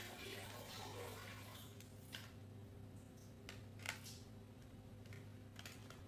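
Crayons clicking against each other and their case as a hand sorts through them: a few separate light clicks, the sharpest about four seconds in, over a steady low hum.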